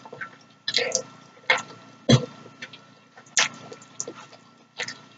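Close-up eating sounds of cheesy noodles being slurped off a fork: about six short, wet slurps and mouth smacks, the loudest about two seconds in.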